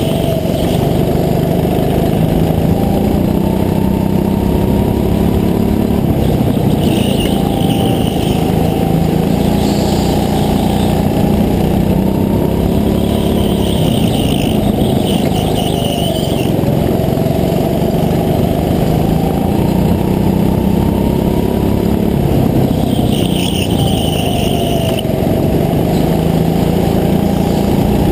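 Racing go-kart engine heard from the driver's seat, running hard, its pitch rising and falling again and again as the kart slows for corners and accelerates out of them.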